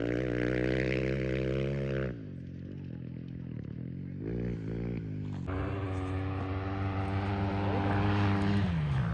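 Off-road race motorcycle engines running at high revs, heard in short clips that break off abruptly about two seconds in and start again about five and a half seconds in. Near the end the engine note bends downward.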